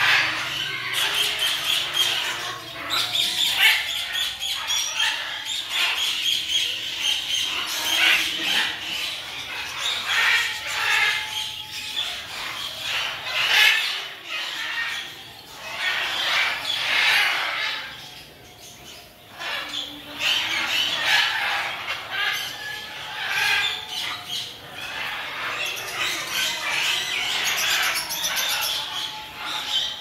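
Many caged aviary birds squawking and chirping over one another, a near-continuous chorus with a short lull about two-thirds of the way through.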